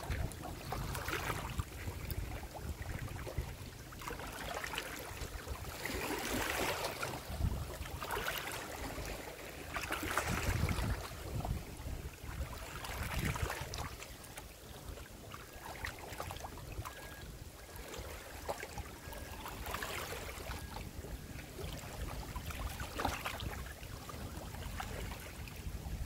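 Small waves lapping against the water's edge, washing in irregular surges every few seconds, with low wind rumble on the microphone.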